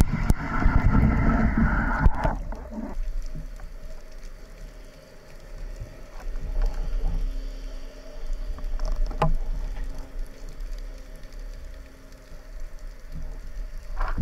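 Underwater sound heard through a camera housing: a loud rushing of water and bubbles for about the first two seconds, then a quieter low rumble with scattered faint clicks and one sharper click about nine seconds in.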